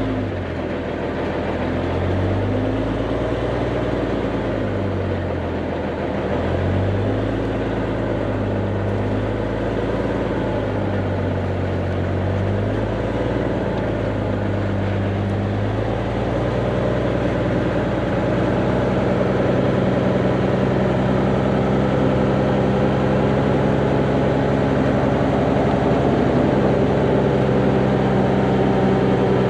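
Heavy diesel engine of earthmoving equipment working: its pitch rises and falls repeatedly for about the first half, then holds steady at higher revs.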